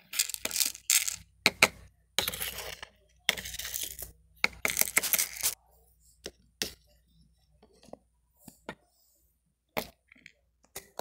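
Utensil clinking and scraping on small plates as food is dished onto them: irregular short clinks and scrapes, busiest in the first half, then a few scattered clicks.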